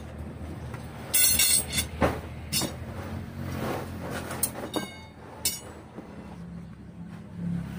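Steel rods clanking and ringing against each other as they are picked up and moved on the workshop floor: a run of sharp metallic clanks, the loudest a little over a second in, over a low steady hum.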